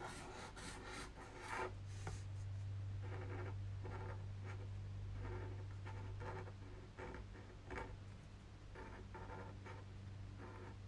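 Pen scratching on paper in short, quick strokes as a line drawing is drawn, with a steady low hum underneath that comes in about two seconds in.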